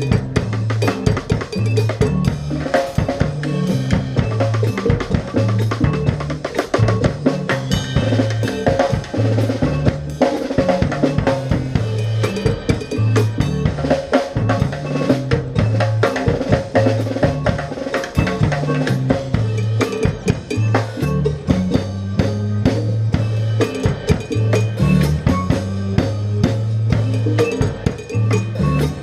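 Music with a busy drum kit (snare, bass drum and cowbell strokes) over a bass line stepping between low notes.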